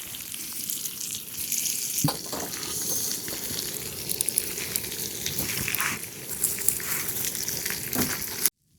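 Food sizzling and frying in a pan over a wood fire: a steady hiss scattered with small pops and crackles. It cuts off abruptly near the end.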